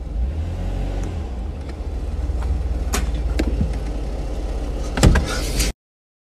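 Car running, heard from inside the cabin as a steady low rumble, with a few sharp knocks about three seconds in and a louder one near the end. The sound then cuts off abruptly.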